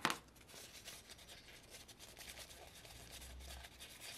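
A sharp click, then faint scratchy rustling and rubbing of a paper towel as it is handled and wiped over a small metal engine part.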